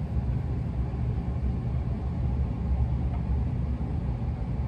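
Steady low rumble with a faint hiss: background room noise with no distinct events.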